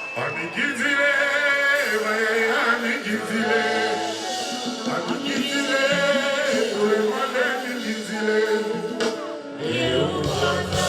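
Live concert band music with male singing. Low bass and drums come in louder near the end.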